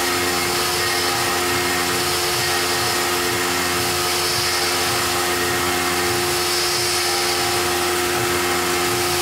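Tormach PCNC 1100 CNC mill's spindle running as a small end mill cuts a tapered hole in aluminum: a constant machine whine of several held tones over an even hiss.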